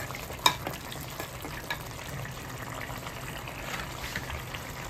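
Thick red ambotik masala gravy bubbling on a simmer in a steel pot, with one short clink of the metal ladle against the pot about half a second in.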